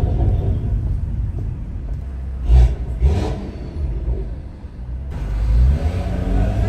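Stage 2 BMW 540i with a custom exhaust: the engine note dies away off the throttle, with two sharp exhaust pops about midway, the first the louder, then it builds again as the car accelerates near the end.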